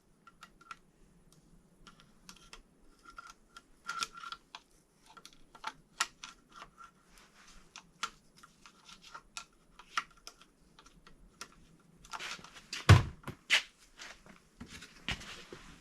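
Metal parts of a BMW N55 timing chain module being handled and fitted to the engine block: scattered light metallic clicks and ticks, with a heavier knock about 13 seconds in.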